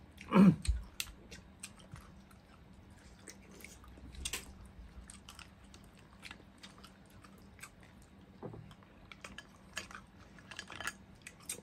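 Close-up eating sounds: chewing, with scattered small clicks as mussels in their shells and fried trevally are picked up and eaten by hand. One louder, sharp sound about half a second in.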